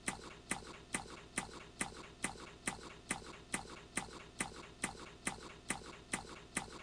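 Ticking clock, a sharp, even tick a little over twice a second.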